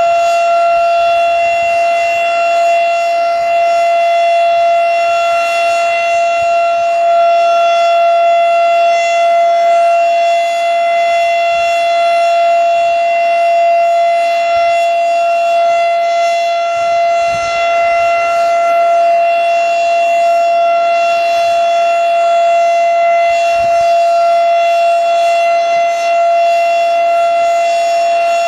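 1986 Federal Signal STH-10A outdoor warning siren sounding its full alert: one steady, unbroken tone at full speed, with no rise or fall in pitch and several higher overtones above it.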